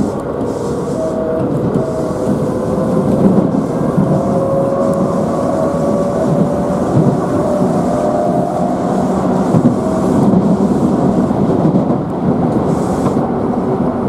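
Inside a Keisei electric commuter train under way: a steady rumble of wheels on rails, with the traction motor whine climbing slowly in pitch as the train picks up speed.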